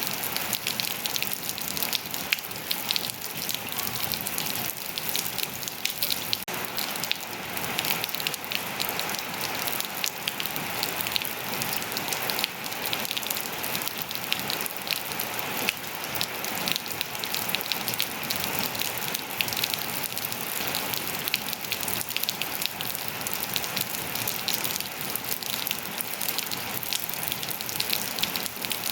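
Steady rain falling on surfaces, a dense hiss of many individual drops pattering.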